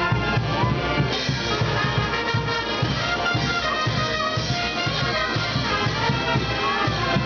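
Live Peruvian brass band playing dance music, with trumpets and trombones over a steady drum beat.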